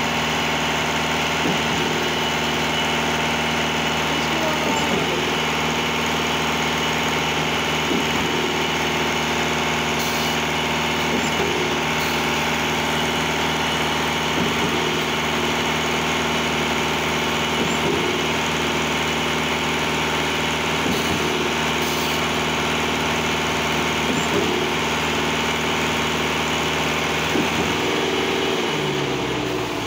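Concrete batching plant and trailer concrete pump running steadily together as concrete pours into the pump hopper, with a regular pulse about every three seconds. Near the end the running pitch falls away and the sound drops as a machine winds down.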